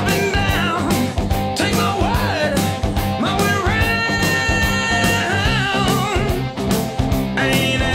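Background music: an upbeat rock song with a steady drum beat, guitar and singing.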